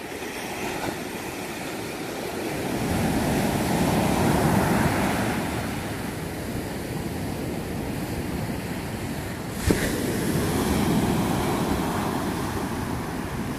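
Ocean surf breaking and washing up the sand, a steady rush that swells twice. One sharp click sounds about ten seconds in.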